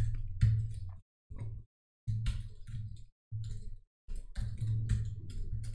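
Computer keyboard typing: several short bursts of quick keystroke clicks with brief pauses between them.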